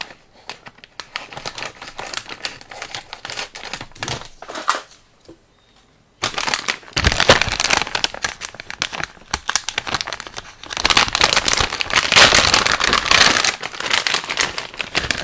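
A sealed plastic parts bag from an RC car kit being opened and handled: crinkling plastic with scattered clicks, a short pause about five seconds in, then denser, louder crinkling through the second half.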